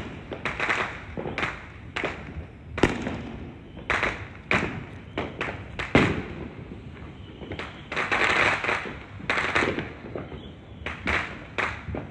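Many fireworks going off at once, heard from a distance: sharp bangs come one to three times a second, with stretches of crackling between them. The loudest bang comes about six seconds in, and a long crackle follows at about eight seconds.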